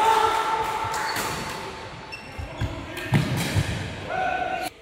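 Badminton doubles rally on a wooden court: sharp racket strikes on the shuttlecock, thudding footfalls and a short rubber shoe squeak near the end.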